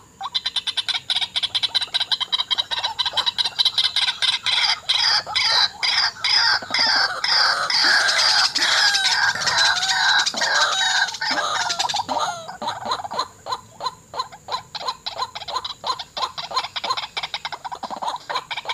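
White-breasted waterhens calling: a fast run of harsh, repeated 'wak' notes, several a second, swelling into a denser tangle of overlapping calls from about 8 to 12 seconds in, then back to the steady run.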